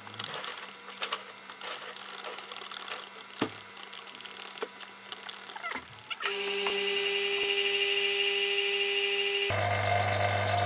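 A wooden stick stirs resin in a plastic cup, making scattered light clicks and scrapes. About six seconds in, a louder steady machine hum with several fixed tones takes over and changes abruptly near the end.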